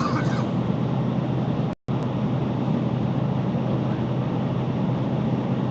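Steady car road and engine noise heard from inside the cabin while driving. The sound cuts out completely for a moment about two seconds in.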